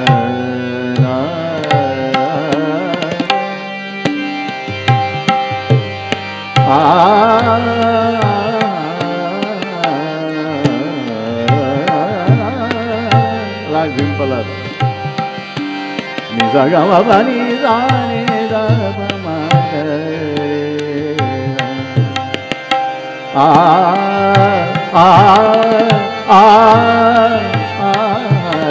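Hindustani hori thumri in raga Mishra Kafi: a man sings ornamented, wavering phrases over harmonium accompaniment, while tabla keeps the addha tala cycle with steady strokes. The voice swells loudest about a quarter of the way in, just past halfway, and again near the end.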